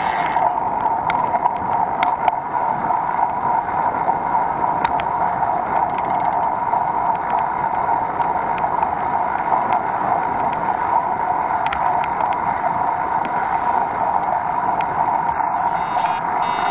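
Steady muffled wind and road noise from a bicycle-mounted action camera while riding, with faint scattered ticks. A brighter hiss comes in about a second before the end.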